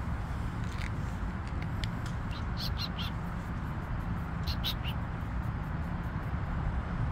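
A small bird chirping in two quick clusters of short, high chirps a couple of seconds apart, over a steady low background rumble.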